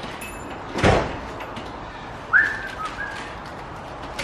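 Steel Sonic tool-cabinet drawer sliding and banging about a second in, then a brief high squeak a little past halfway, with a couple of faint clicks after it.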